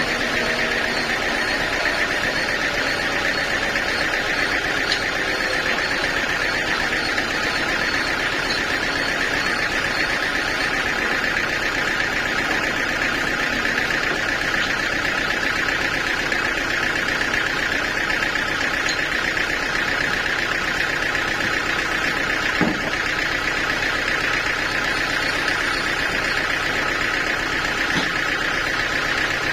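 Sawmill machinery running steadily, with a single brief knock about three-quarters of the way through.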